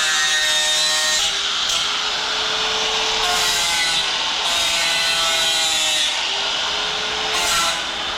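Handheld power grinder working on metal exhaust tubing, with a steady gritty hiss and a motor pitch that sags and recovers slightly as the load changes.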